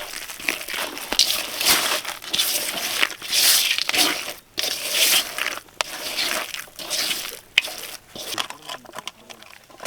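Roasted potatoes being crushed and mashed by hand for an Odia potato mash, a quick irregular run of crunching and squishing with sharp little cracks.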